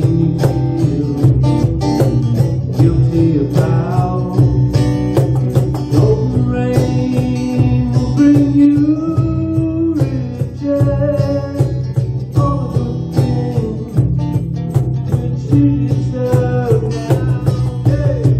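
A small band playing a song live: two guitars strummed and picked over a cajon beat.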